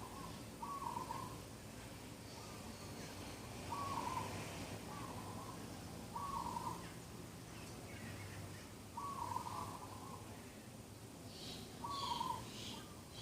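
Morning birdsong: one bird repeats a short, low call every one to three seconds. Near the end a second bird adds a few brief, higher chirps.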